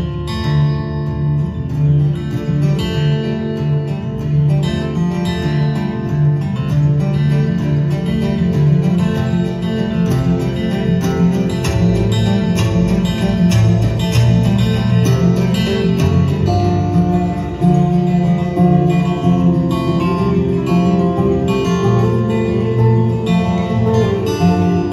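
Two steel-string acoustic guitars playing a fingerstyle duet live, with dense plucked melody notes over a steady bass line.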